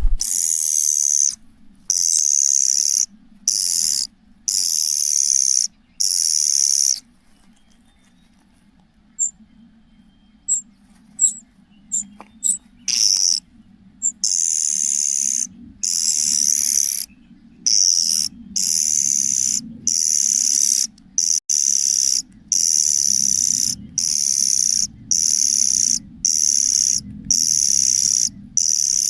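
Young cuckoo's shrill, hissing begging calls, given in stop-start bursts up to about two seconds long. There is a pause of a few seconds around the middle with only a few short chirps, then the bursts come faster, one after another. A faint low hum lies underneath.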